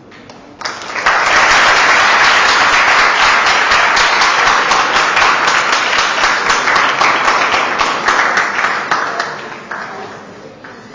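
Audience applauding. The clapping starts abruptly about a second in, holds steady, and dies away near the end.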